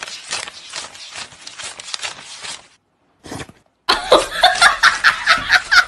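Paper banknotes flicked and rustled in quick succession as they are counted by hand. After a short pause, a louder run of rapid, rhythmic, voice-like sounds takes over near the end.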